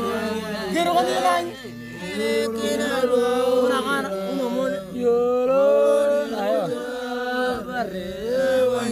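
Otuho (Lotuko) song: voices chanting a sung melody over a steady held low note.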